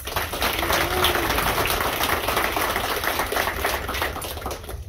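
Crowd applauding, a dense patter of clapping that dies away near the end.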